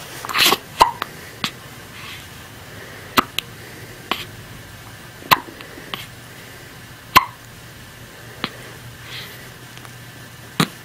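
Hiccups: a sharp, short catch repeated about every two seconds, some with a brief squeaky note, with fainter clicks between them.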